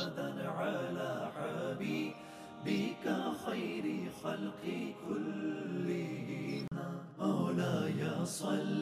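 Devotional vocal chanting, sung without instruments, its melody sliding up and down in long held phrases.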